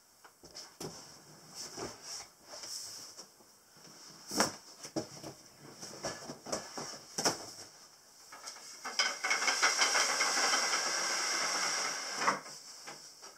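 Knocks, bumps and scrapes of a plastic storage box and bedroom furniture being handled and moved. About eight and a half seconds in, a steady hissing rush starts and runs for about four seconds as the loudest sound, then stops.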